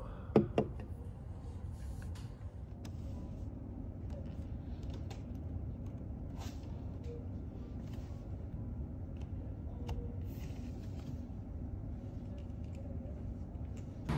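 Steady low hum of room ambience, with two sharp knocks close together about half a second in and faint scattered ticks afterwards.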